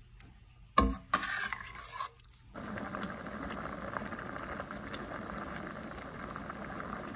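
A ladle knocking and scraping in a stainless-steel pan of spinach and dal, then, from a couple of seconds in, a steady bubbling as the thin spinach dal boils hard.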